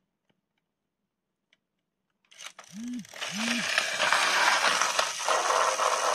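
Plarail EF66 toy locomotive's battery motor running, a steady whirring rattle of its gears and wheels on the plastic track. It starts about two and a half seconds in, after near silence, with two short low rising-and-falling tones just as it gets going.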